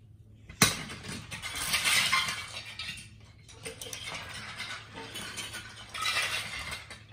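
Plastic toys and Lego bricks clattering: a sharp knock about half a second in as a toy drops into the storage bin, then bursts of irregular rattling as a toddler handles and rummages through a pile of toys.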